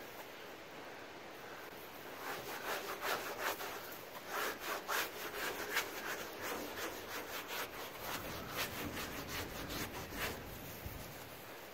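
Wet rag scrubbed back and forth against the weathered wooden fascia of a pit toilet, cleaning off moss and grime. The quick, uneven rubbing strokes start about two seconds in and ease off near the end.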